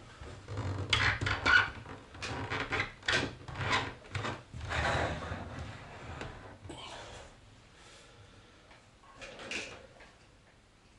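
A computer keyboard and other things being slid and shifted about on a desktop: a string of irregular scrapes, rubs and knocks over the first five seconds or so, then a few fainter ones.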